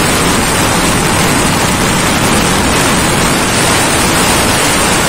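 Loud, steady wind rush on the microphone of a sport motorcycle ridden at about 160 km/h, with no distinct engine note standing out.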